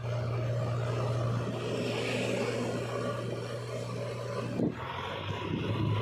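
Diesel engine running steadily on the move, with road and tyre noise; the engine note dips briefly after a short knock a little before the end.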